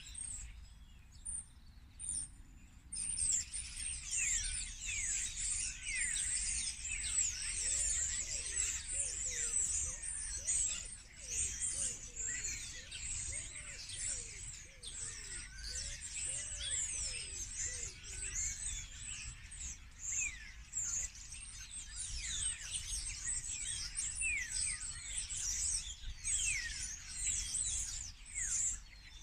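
A dense chorus of many small birds chirping and twittering at once, with many overlapping calls; it is sparse for the first few seconds, then fills in and keeps going.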